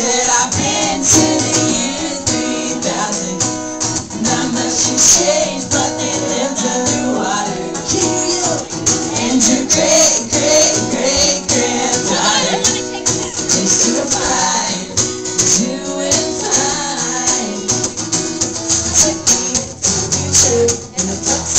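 Live pop-rock band playing: a male lead singer into a microphone over guitars, with a steady clicking, rattling rhythm running through.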